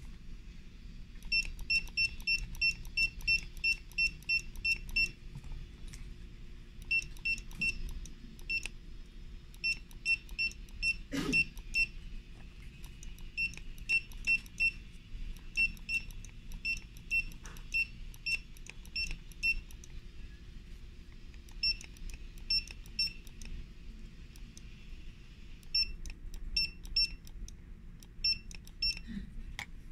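CM-2D002 2D barcode scanner beeping on each successful read as barcodes and QR codes are held in front of it. The beeps are short and high-pitched, about three a second, in runs with short pauses between.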